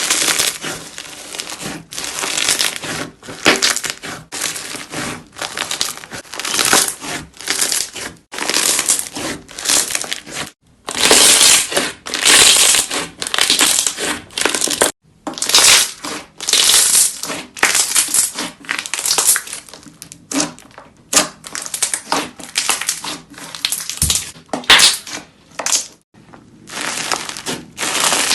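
Close-miked crunching and crackling of a crunchy material being squeezed and crushed, in quick repeated bursts one after another, with a few brief silent breaks.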